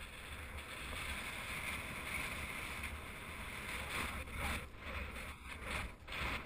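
Wind rushing over the microphone of a paraglider in flight: a steady roar of airflow noise that swells and dips in gusts in the second half.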